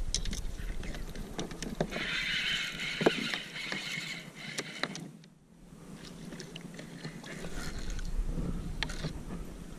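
Spinning reel being cranked, a whirring from about two to four seconds in, with scattered clicks and knocks of tackle against the kayak. A brief near-silent gap about halfway through.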